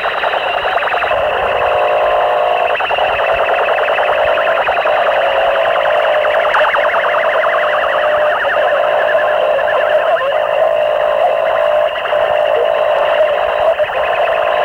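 Harsh noise music from a 1992 cassette demo: a dense wall of distorted electronic noise made with microphones and homemade electronics, with almost no bass. A steady droning tone runs under it, and a rapid fluttering pulse comes in around the middle.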